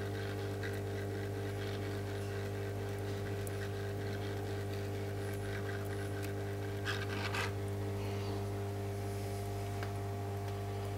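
Hot-air rework station blowing with a steady hum while it heats a small surface-mount chip to desolder it, here the faulty gamma IC being removed from an LCD TV's control board. A brief scrape of tweezers lifting the chip comes about seven seconds in.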